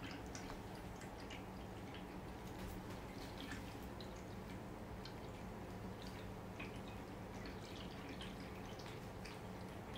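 Cats eating treats from a hand, a dish and the floor: small, irregular wet clicks of chewing and licking, over a steady low hum.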